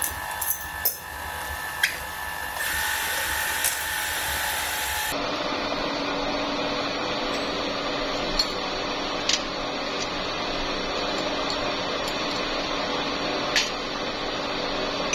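Power tool running steadily, with a few sharp clicks. The sound changes abruptly about five seconds in.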